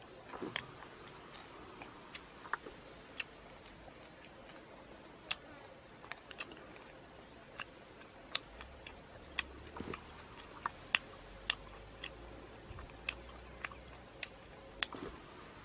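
Scattered dry clicks and crackles of crisp grilled snake being picked apart by hand on a bamboo skewer, over a faint high trill that comes back every second or two.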